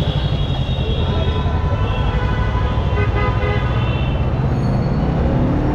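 Road traffic heard from a moving motorcycle: steady low rumble of wind and engine, with a vehicle horn sounding for about two seconds in the middle.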